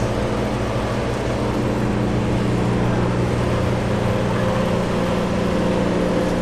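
A steady low mechanical hum, like an engine running, over an even wash of outdoor noise.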